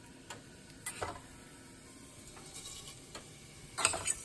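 A few short, light clicks and taps scattered through, the sharpest pair near the end, as whole spice seeds (mustard seed, onion seeds) are added to oil in cooking pots.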